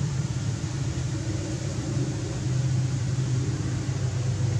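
A steady low rumble with a faint hum, unchanging throughout.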